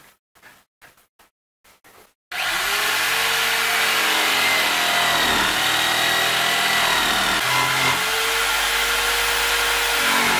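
A handheld electric power tool cutting wood: faint handling sounds at first, then about two seconds in the motor starts suddenly and runs loudly and steadily, its pitch dipping and recovering a few times as the cut loads it.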